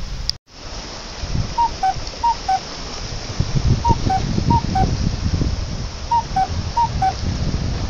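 Wind and sea waves on a rocky shore, a steady rush with low buffeting. Over it a short four-note pattern of alternating high and low tones repeats three times, about every two seconds.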